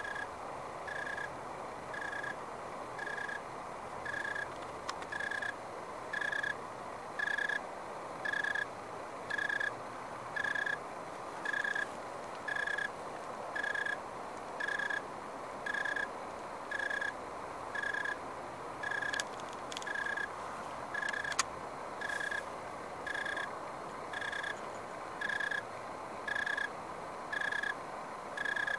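A cricket chirping steadily, about one short, clear high note a second, each chirp evenly spaced from the last.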